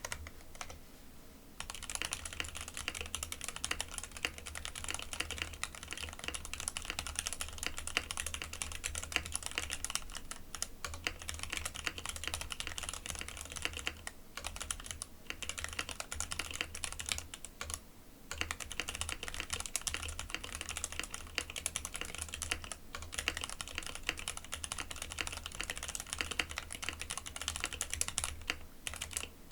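Continuous typing on a custom mechanical keyboard: a Monstargear X0 K80 aluminium board with an aluminium plate, JWK Lilac linear switches with light factory lube, and doubleshot PBT keycaps, sandwich-mounted with no sound dampening. Dense, closely spaced keystroke clacks begin about a second and a half in, with a few brief pauses.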